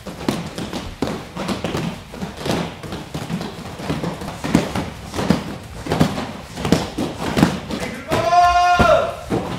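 Punches thudding into hand-held padded striking mitts, several impacts a second and uneven as several pairs strike at once. Near the end a loud shout about a second long.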